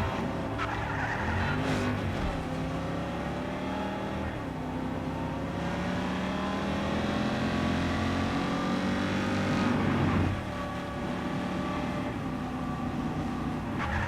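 Video game car engine running and revving, its pitch rising and falling, with a sudden drop in level about ten seconds in.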